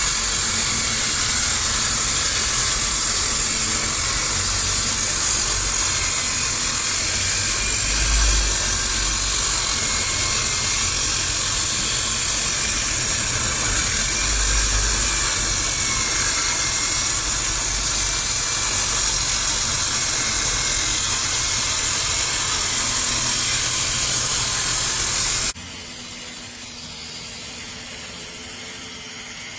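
Circular saw with a DeWalt blade cutting through a concrete slab: a loud, steady, hissing grind of blade on concrete. Near the end it drops abruptly to a quieter steady noise.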